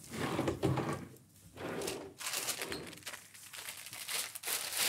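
Irregular rustling and light knocks of goods being handled at a bakery counter, in a small shop room.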